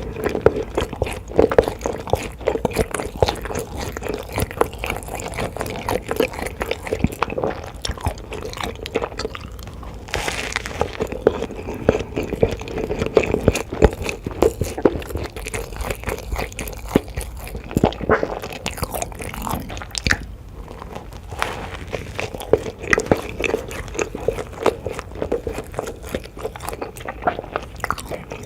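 Close-miked eating: a steady run of crunchy bites and chewing, with many quick crackles and clicks.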